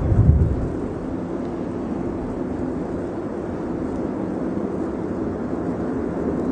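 Airbus A350 airliner's Rolls-Royce Trent XWB jet engines, a steady rushing jet noise, with low rumbling surges in the first half second.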